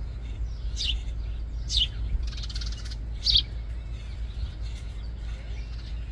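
House sparrows chirping: three sharp, falling chirps about a second apart, with a short rapid rattling chatter between the second and third. A steady low rumble runs underneath.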